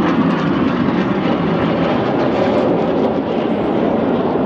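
Loud, steady rush of jet noise from the Red Arrows' BAE Hawk T1 jets flying a display pass.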